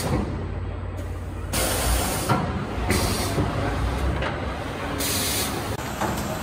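Automatic carpet rolling machine running with a steady low hum, broken by short bursts of air hiss from its pneumatic cylinders about one and a half seconds and five seconds in.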